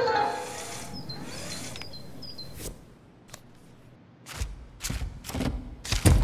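Music fades out, a few short high chirps follow, and then a series of sharp plastic clicks and knocks comes as hands handle a small model car. The clicks are loudest near the end.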